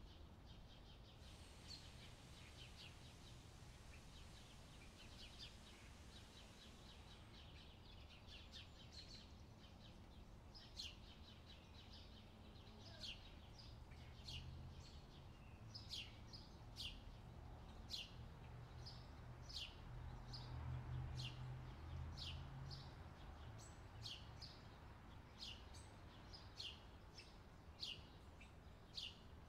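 Faint, high chirps of a small bird, each short and dropping in pitch, repeating roughly once a second over a low steady hum.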